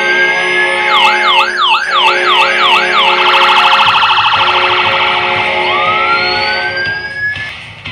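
Custom hockey goal horn mixed with an electronic siren: the siren switches from a rising wail to fast yelps at about four a second, then a rapid warble, then rises into a wail again, over a steady low horn chord. It all fades out near the end.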